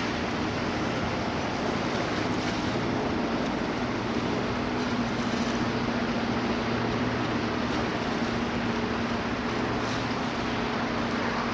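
Distant Boeing CH-47 Chinook twin-rotor helicopter flying, a steady drone with a low hum, heard over general city noise.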